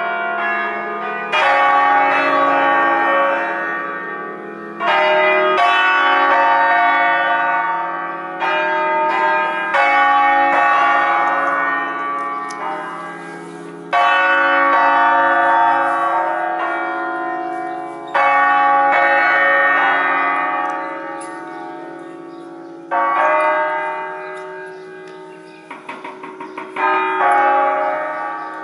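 A peal of eight Crespi bronze church bells tuned in D-flat, swung on wheels and rung in a concerto sequence: a loud new stroke every few seconds over the others still ringing on and slowly fading. Near the end comes a quick run of lighter strokes.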